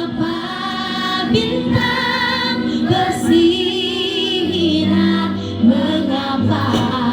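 Junior-high school choir singing, holding long notes with a wavering pitch.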